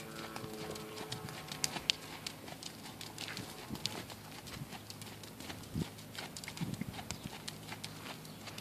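Hoofbeats of a horse moving on a sand arena: irregular, soft thuds and clicks as the hooves strike and kick through the sand.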